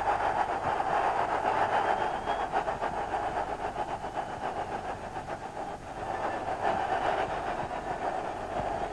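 Stadium crowd cheering a goal, a dense wall of noise that slowly dies down and swells again briefly about six seconds in.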